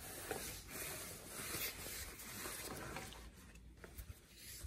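Faint, uneven fabric rustling and rubbing as hands work open the back-protector pocket in a motorcycle jacket's slick lining and handle the back protector insert, with a few soft taps.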